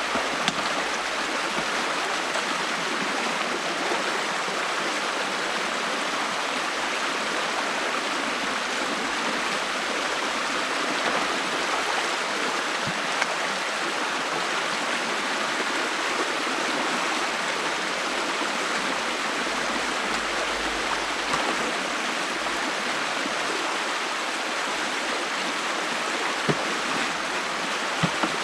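Stream water rushing steadily through an opening in a beaver dam, with a few faint, brief ticks now and then.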